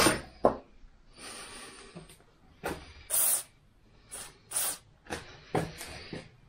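A sharp knock at the start, then an aerosol spray can fired through a thin straw nozzle in a series of short hissing bursts, the longest about a third of a second.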